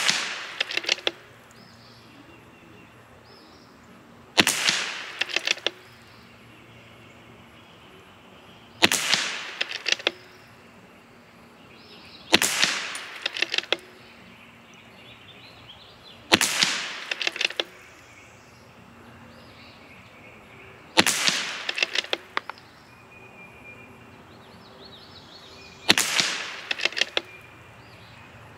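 Six single shots from a CZ 457 Varmint MTR .22LR bolt-action rifle with a Lilja match barrel, each a sharp crack with a short echoing tail, spaced roughly four to five seconds apart. They are warm-up shots fired to bring the barrel up to temperature.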